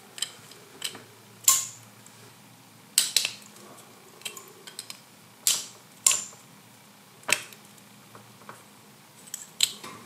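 A clear plastic RJ45 plug being pushed into and pulled out of an RJ45 coupler: about ten sharp plastic clicks and small rattles, irregularly spaced, the loudest about one and a half, three and five and a half seconds in.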